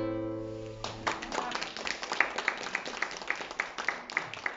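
The last acoustic guitar chord rings out and fades, and about a second in a small audience starts applauding.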